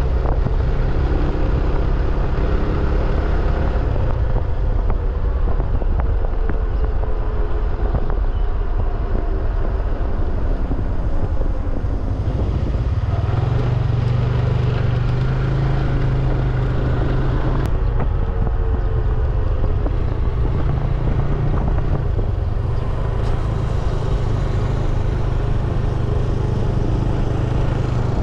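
A vehicle's engine running steadily while on the move, with wind rumbling on the microphone. The engine note rises a little about halfway through.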